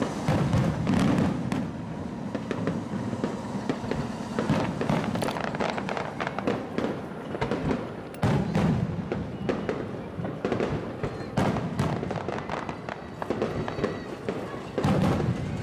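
Aerial fireworks bursting in quick succession: many sharp bangs and crackles over a low rumble.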